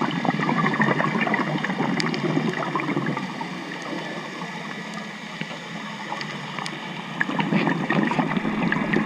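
Boat traffic heard underwater: a steady engine hum with faint steady tones under a crackling hiss. The hiss swells louder twice, at the start and near the end.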